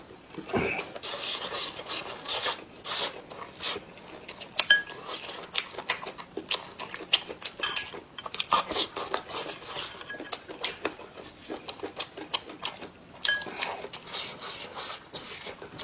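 Close-miked eating of cooked octopus tentacles: wet chewing, sucking and lip smacks, with many short, irregular clicks.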